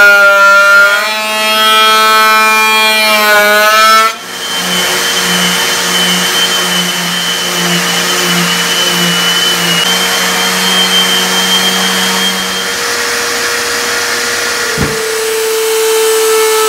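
Benchtop thickness planer running as it cuts a cedar and epoxy board, its pitch bending with the load. About four seconds in it cuts to a random orbit sander running steadily on the board, and near the end to a router spinning in a router table with a steady tone.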